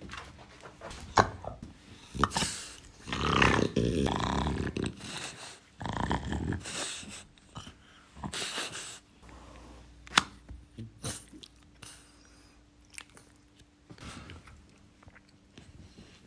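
A French Bulldog vocalizing in several irregular bouts, the longest a few seconds in, while it is handled; a few sharp clicks come in between.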